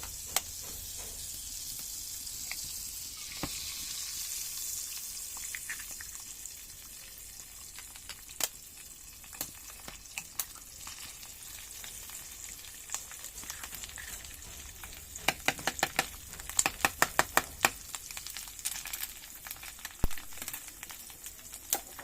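Eggs frying in a pan on a wood-burning stove, with a steady high sizzle. Sharp clicks and taps come through it, with a quick run of them about two-thirds of the way through.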